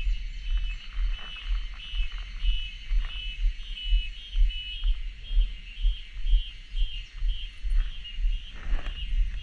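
Cicadas calling in a dense, pulsing chorus high in pitch, with regular low thumps about twice a second underneath.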